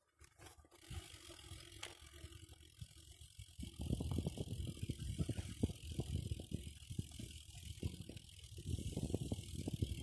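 BMX bike being ridden over bumpy grass and dirt, rattling with rapid, irregular knocks that get louder about four seconds in.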